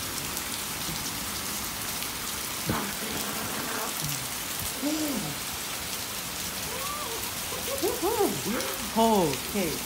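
Steady heavy rain falling on wet pavement in a thunderstorm. Several short pitched calls that rise and fall in pitch come through it, a few scattered early on and a cluster of them near the end, louder than the rain.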